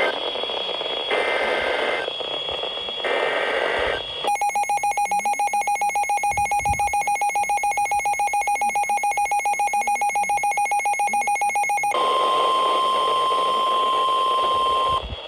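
NOAA Weather Radio EAS alert over a hissy radio signal. It opens with two buzzy SAME data-header bursts about a second apart, then an alarm tone beeping rapidly, about eight pulses a second, for about eight seconds. It closes with the steady 1050 Hz attention tone for about three seconds, signalling a warning about to be read.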